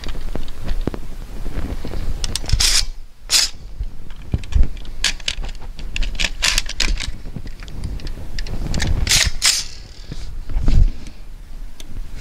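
Metallic clicks and rattles of an AR-15 rifle being handled while its magazine is pulled out and seated again; a string of separate sharp clicks spread across several seconds, not gunfire.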